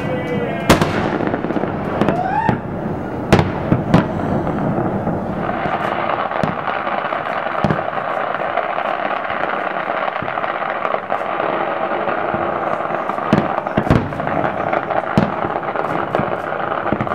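Aerial firework shells bursting with sharp, irregular bangs, several of them close together. From about five seconds in, a dense, steady crackle of bursting stars fills the gaps between the bangs.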